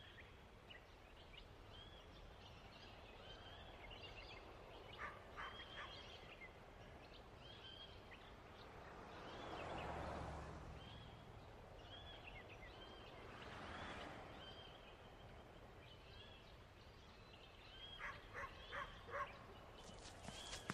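Faint backyard ambience of small birds chirping now and then, with two soft swells of rushing breeze in the middle and a few quick clustered chirps near the end.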